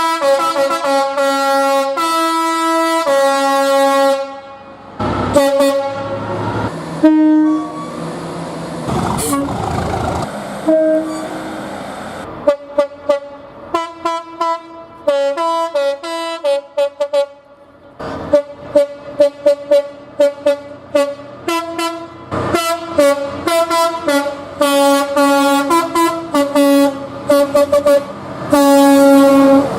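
Multi-tone train horns sounding. There are a few long held blasts first, then a stretch of rumbling train noise, then a long run of rapid short toots from about halfway through to the end.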